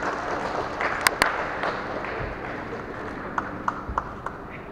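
Crowd noise in a large echoing hall, a dense murmur that slowly dies down. Sharp clicks or taps cut through it: two close together about a second in, and a few more near the end.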